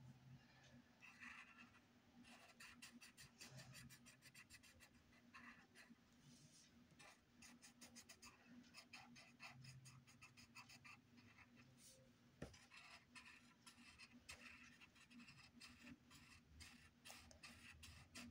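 Faint scratching of a coloured pencil shading on paper in rapid strokes, with one sharp tick about twelve seconds in.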